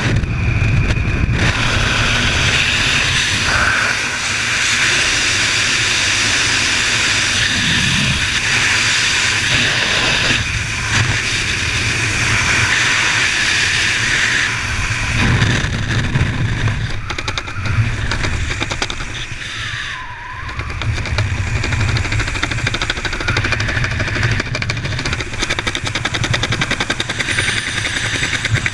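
Rushing wind of a skydiving freefall buffeting a head-mounted camera's microphone: loud, steady wind noise that swells and eases, dipping briefly about two-thirds of the way through.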